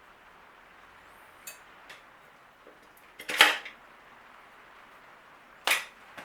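Metal bike parts and tools clanking as they are handled: a few light clicks, then a loud metallic clank about three and a half seconds in and another near the end.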